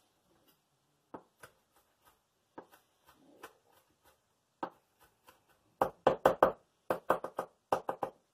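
Chef's knife chopping minced garlic on a wooden cutting board: a few scattered knocks at first, then quick runs of chopping strokes, about four or five a second, from about six seconds in.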